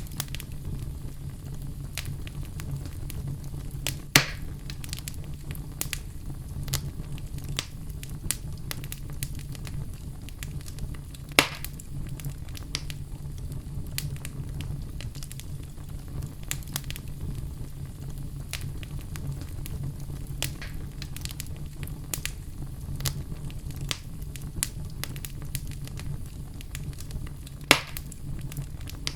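Oak logs burning in a fireplace: a steady low rumble of flames with scattered crackles and pops, three of them sharper and louder, about four seconds in, near the middle and near the end.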